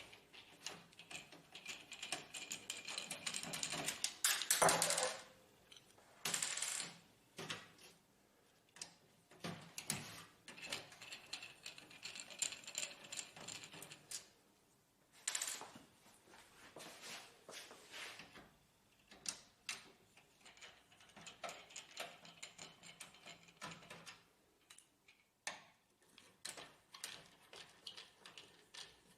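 Screws being taken out of an HP LaserJet printer's chassis with a hand screwdriver: a run of small clicks, scrapes and rattles of metal and plastic, louder and scratchier about four to five seconds in.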